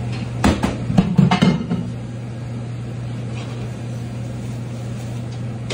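Steady low hum of a commercial kitchen's exhaust hood and ventilation fans, with a quick run of metal knocks and clatter of pans and utensils from about half a second to two seconds in.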